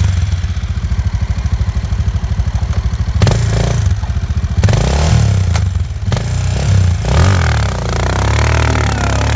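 Motorcycle engine revving hard, the revs rising and falling several times as the bike works to pull away through snow, then settling to a steadier run near the end.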